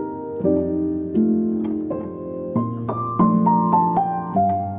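Background piano music: soft chords with a slow melody that steps downward near the middle.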